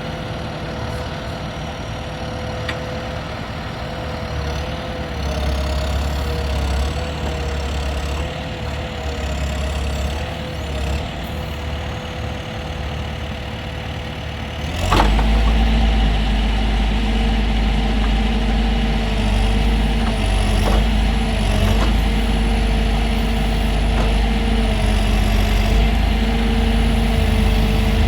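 John Deere 410J backhoe loader's diesel engine running steadily, with a faint high whine that wavers in pitch. About halfway through there is a sharp click and the engine grows suddenly louder and deeper, running harder for the rest.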